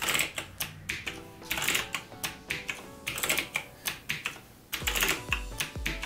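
Clicky Kailh Blue mechanical keyboard switches on an AZIO MGK1 RGB being pressed repeatedly, a sharp click every half second or so. Background music plays underneath, with a bass beat coming in near the end.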